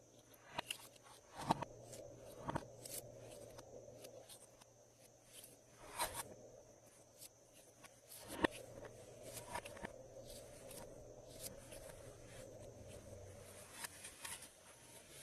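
Glossy slime being worked by hand, giving faint, irregular sticky clicks and small pops, a few of them sharper and louder.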